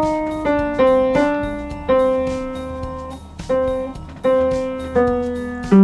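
Upright piano played by hand: an unhurried melody of single notes and chords, each note ringing and fading before the next. A low note near the end is the loudest.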